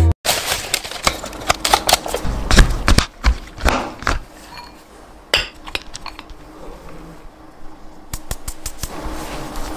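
Serrated knife chopping chocolate on a wooden cutting board: quick, irregular knocks of the blade against the board, thinning out after about four seconds into occasional clinks of kitchen utensils.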